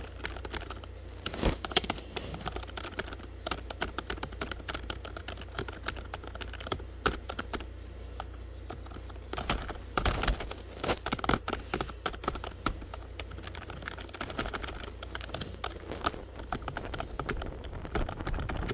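Computer keyboard keys clicking in quick, irregular typing, with louder flurries of keystrokes about a second and a half in and again around ten to eleven seconds in. A steady low hum sits underneath.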